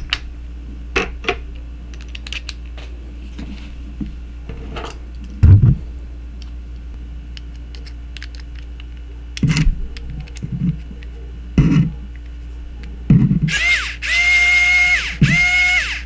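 Small clicks and knocks of tiny metal screwdriver bits and the tool being handled, with one loud knock about five seconds in. Near the end the PKEY mini cordless electric screwdriver's motor runs in two short bursts of steady whine, about a second and a half and then under a second, driving a tiny sunglasses hinge screw.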